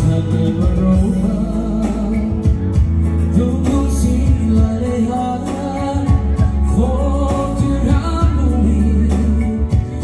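A man singing live into a microphone over an electronic arranger keyboard that he plays, with keyboard chords, bass and a steady drum-machine beat, amplified through PA loudspeakers.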